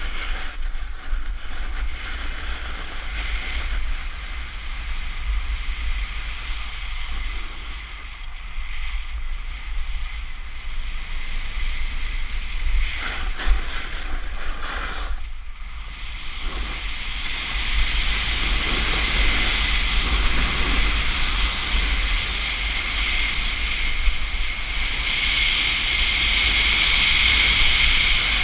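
Snowboard sliding and carving on hard-packed groomed snow: a steady hiss and scrape of the board's edge that grows louder and harsher over the last ten seconds, under a constant low rumble of wind on the microphone.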